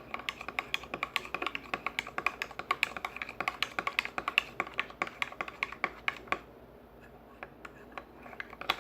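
Homemade slime mixture of glue, glitter gel and water being stirred in a container: rapid, sticky clicking that thins out for a couple of seconds near the end.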